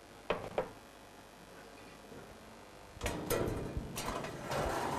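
Stainless-steel dough proofing cabinet being loaded: a metal tray handled and slid in, with a rustle and two sharp metal clicks about three and four seconds in.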